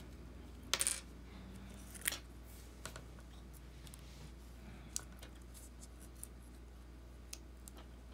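Small sharp clicks and taps of iPhone 6s parts being handled: the replacement screen assembly and its little front-camera flex and metal brackets. The loudest is a quick cluster about a second in, followed by a click near two seconds and scattered faint single clicks.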